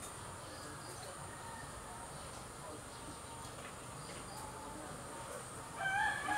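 Garden background with a steady high insect drone and scattered faint bird chirps. Near the end a rooster starts crowing loudly.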